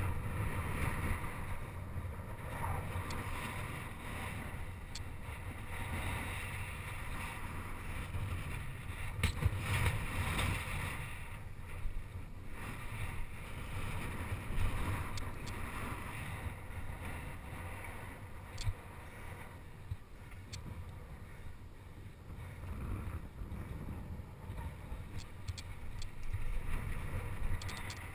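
Wind buffeting a handlebar-mounted action camera's microphone while a bicycle rolls fast over a dirt track, its tyres rumbling on the ground, with scattered clicks and knocks from the bike rattling over bumps.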